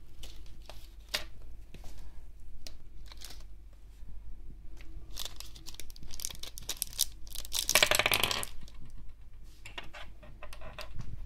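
Plastic packaging (a bubble-padded mailer and a small clear bag) crinkling and tearing by hand, in scattered crackles, with one longer, louder rip a little past the middle.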